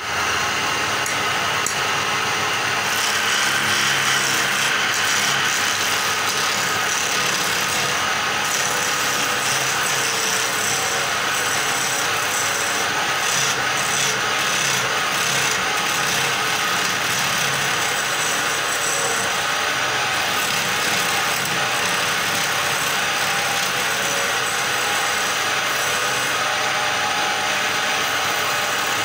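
Steady scraping hiss of a hand-held chisel cutting a wooden blank spinning on a belt-driven wood lathe, peeling off a stream of shavings.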